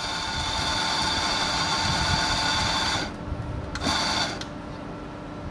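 Electric coffee grinder motor running steadily as it grinds an espresso dose, stopping about three seconds in, then running once more for a short burst of under a second.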